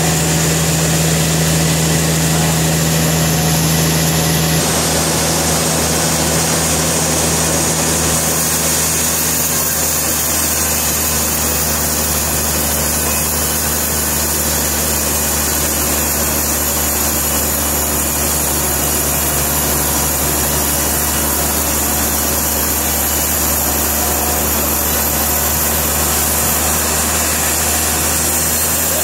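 Sawmill machinery running steadily: an engine-driven saw humming, with one steady tone dropping out about four and a half seconds in.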